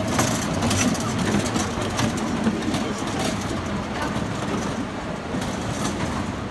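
Small electric kiddie ride-on train running along its track, a steady rumble of wheels on rails that eases off slightly toward the end.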